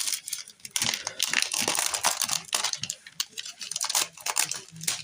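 CD packaging being handled: plastic and paper crinkling and rustling, with small irregular clicks.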